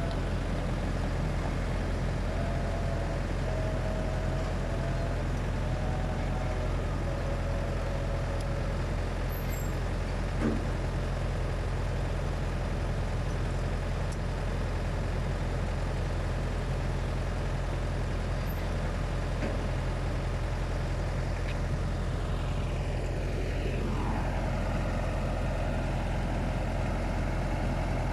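A heavy vehicle engine runs steadily at a low hum. About two-thirds of the way in, a whine slides down in pitch and then holds at a steady note.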